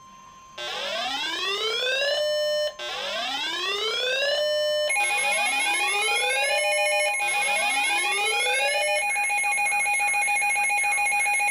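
Emergency alert tones: four rising electronic whoops, one about every two seconds, and from about halfway in the steady two-tone Emergency Alert System attention signal, sounding together until the whoops stop near the end.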